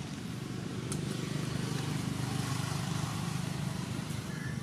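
Motorbike engine running, a low steady drone that grows a little louder after the first second and eases toward the end, with a single click about a second in.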